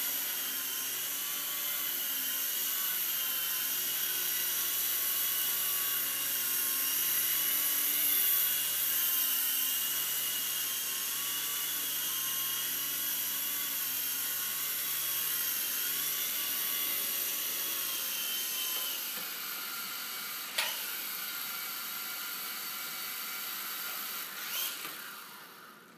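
Micro indoor RC helicopters flying: the steady, high-pitched whine of their small electric motors and rotors, wavering slightly in pitch. It dies away over the last several seconds as they come down, with a sharp click about 20 seconds in and a few light knocks as they settle on the wooden floor near the end.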